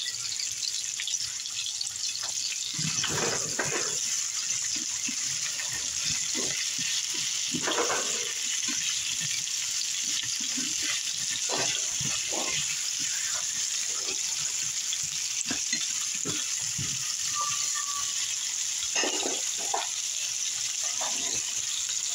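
Zucchini pieces sizzling in hot oil in a frying pan with a steady hiss. Now and then a spatula stirs them, scraping and knocking against the pan.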